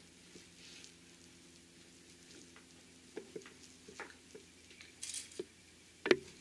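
Hands handling quilted cotton fabric with a metal D-ring and a sewing clip: soft rustles and small taps, a brief rustle about five seconds in and one sharp click about a second later, over a faint steady hum.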